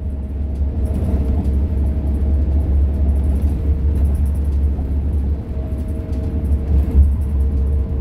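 Cabin noise inside a moving commuter seat bus: a steady low rumble of engine and tyres on the road, with a faint steady hum above it.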